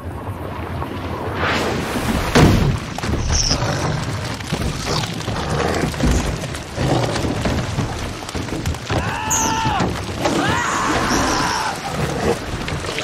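Film sound mix of a shower of fish striking a wooden lifeboat and the sea: a run of thuds and splashes, the loudest thump about two and a half seconds in, over music. Two high cries come near the end.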